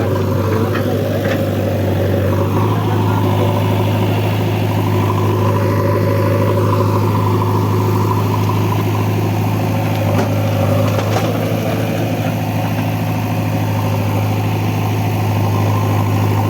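Heavy diesel engine of earth-moving machinery running steadily at constant speed, with a strong low hum and a few brief wavers in pitch.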